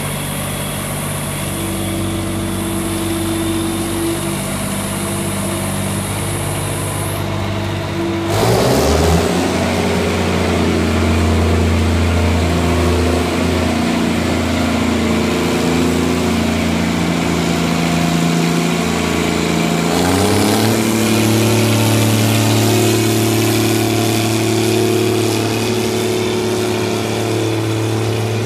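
Gleaner R72 combine's diesel engine running, with a steady note that rises sharply about eight seconds in and again about twenty seconds in.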